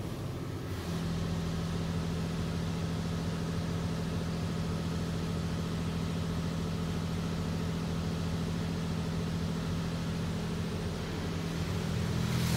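Steady machine hum from a WashWorld Razor touchless automatic car wash, heard from inside the car: a low, even tone that sets in about a second in and holds level.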